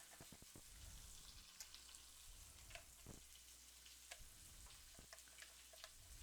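Chicken frying in a pan: a faint, steady sizzle with scattered small crackles.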